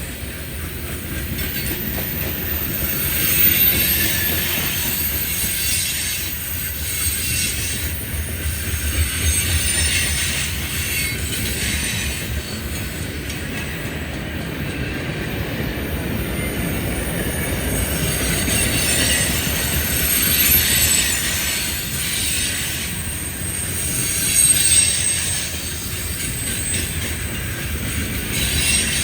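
A train rolling past on the rails: a steady low rumble of the cars, with a high hiss of wheel-on-rail noise that swells and fades several times.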